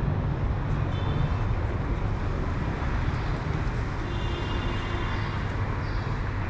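City street traffic: a steady rumble of engines and road noise.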